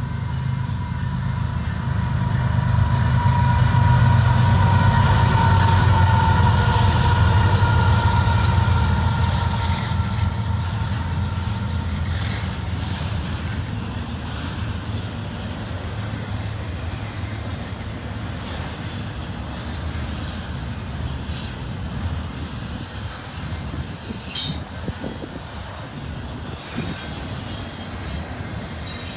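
Diesel locomotives leading an intermodal freight train pass with a heavy engine rumble, loudest in the first ten seconds. Then the double-stack container cars roll by with steady wheel-on-rail noise and short high wheel squeals in the last few seconds.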